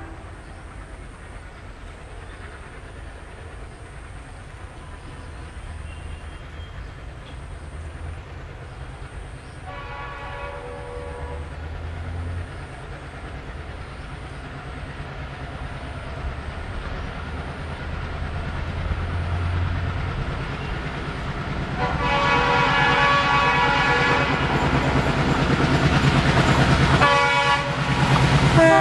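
ALCo diesel locomotive approaching with its train, the low engine rumble growing steadily louder. Its horn sounds about ten seconds in, then again, louder and longer, in the last seven seconds as the train draws near.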